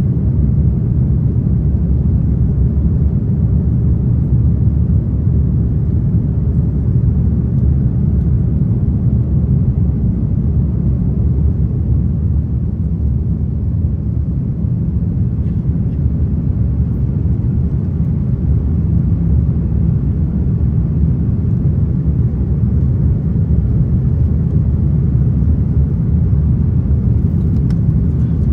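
Steady low rumble of engine and airflow noise heard inside the passenger cabin of an Airbus A330 airliner in flight.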